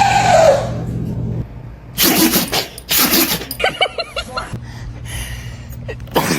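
Dog sneezing: short, sharp sneezes about two seconds in, again a second later, and once more near the end, over a steady low hum.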